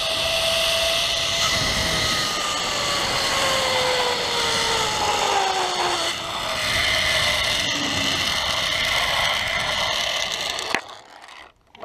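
Zip line trolley pulleys whining along the steel cable over a steady rushing noise. The pitch falls slowly as the rider slows, and the sound cuts off suddenly with a click near the end.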